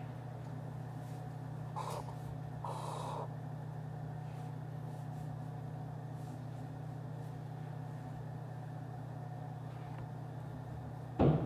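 Steady low hum of office room tone, with two brief rustles about two and three seconds in and a sharp knock near the end.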